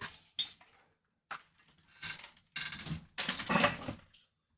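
Handling noises from the computer's parts being moved and set down: a couple of light clicks, then bouts of scraping and knocking, the longest about three seconds in.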